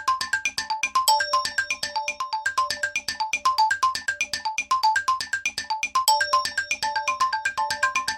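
Ringtone of the HTC Infobar A02 phone: a looping electronic melody of short, bright notes, about six a second. A short phrase repeats about every five seconds.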